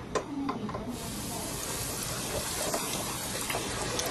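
Breaded calamari going into a deep fryer's hot oil: a few clicks of the basket or utensils, then about a second in the oil bursts into a steady, vigorous sizzle with small crackles.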